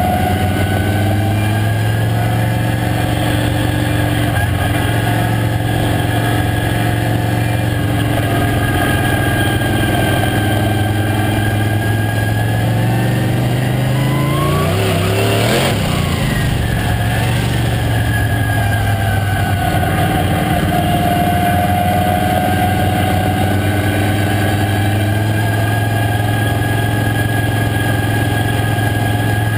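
Late model stock race car's V8 engine running hard at racing speed, heard on board. The pitch is fairly steady, dipping and rising a little, with a brief sweeping sound about halfway through.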